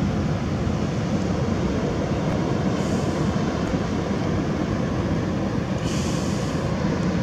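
Wind blowing across the microphone: a steady low rumbling hiss, with brief higher hissing about three and six seconds in.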